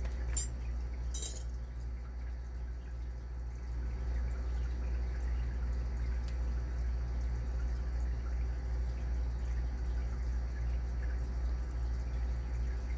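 Two short metallic clinks of small tools being handled about half a second and a second in, then only a steady low hum.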